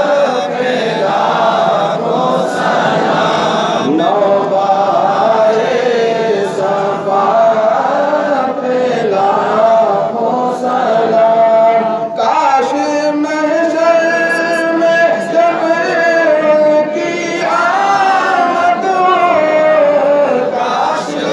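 Men's voices chanting a devotional Urdu salaam together through a PA microphone, unaccompanied, in long held, ornamented notes. The chant dips briefly about twelve seconds in, then starts a new line.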